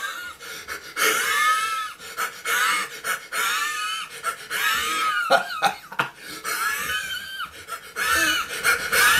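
A man's voice making shrill, wheezing squeals and shrieks, a rapid string of short high-pitched cries that rise and fall, loud and harsh.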